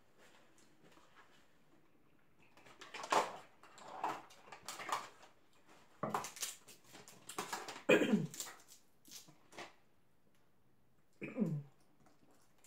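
Snow crab legs being cracked and picked apart by hand: irregular clicking and crackling of shell. Two short vocal sounds, each falling steeply in pitch like a moan or whimper, come about eight seconds in and near the end.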